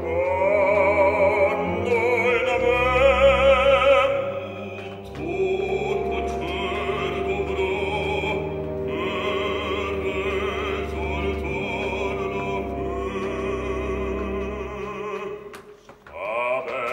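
Operatic bass voice singing long phrases with wide vibrato over an orchestra holding low sustained notes. The voice breaks off briefly about four seconds in, and again near the end.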